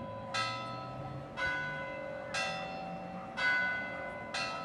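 A church bell tolling slowly, one stroke about every second, five strokes, each ringing on into the next.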